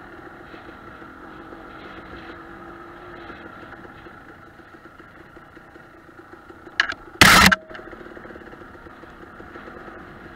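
Dirt bike engine running steadily while riding a rocky trail, with a single loud knock about seven seconds in, briefly louder than the engine.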